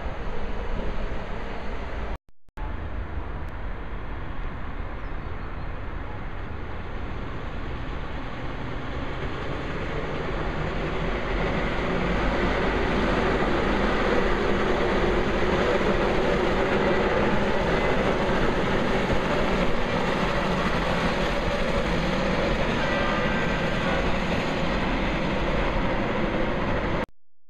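Bombardier TVR guided rubber-tyred tram running along the street, mixed with road traffic. It builds from about ten seconds in and is loudest midway as the tram passes close. The sound drops out briefly a couple of seconds in and cuts off abruptly near the end.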